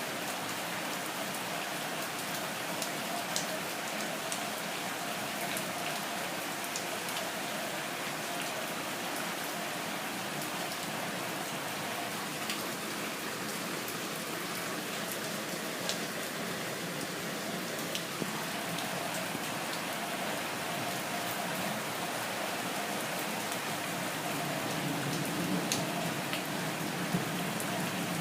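Heavy rain pouring steadily, with scattered sharp drop ticks close by; it grows a little louder near the end.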